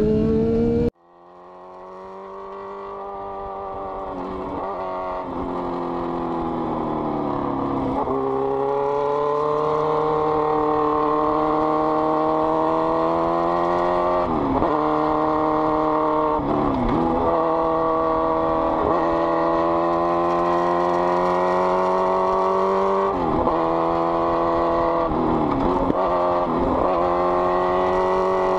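Sportbike engine running at high, steady revs, its pitch dipping briefly and climbing back again and again as the throttle is rolled off and reopened through the curves. The sound cuts out about a second in and fades back up over the next several seconds.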